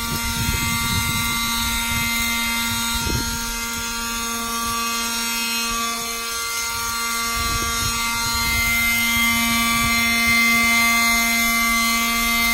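Ryobi One+ 18-volt cordless leaf blower, brushless motor and impeller fan, running steadily at full blow: a constant whine over an uneven low rumble of rushing air.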